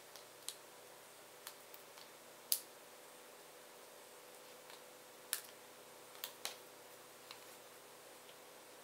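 Scattered light clicks and taps of cardstock and small craft pieces being handled, about seven in all, the sharpest about two and a half seconds in, over a faint steady hum.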